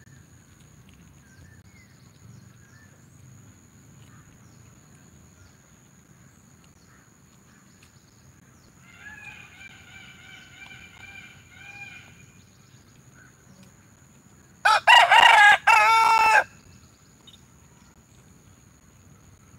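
Rooster crowing twice: a fainter crow about nine seconds in, then a loud, close crow about fifteen seconds in.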